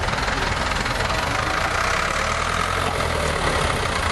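Tractor engine running steadily with a low, even rumble.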